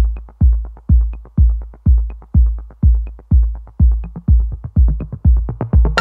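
Background music with a heavy, steady bass beat about twice a second.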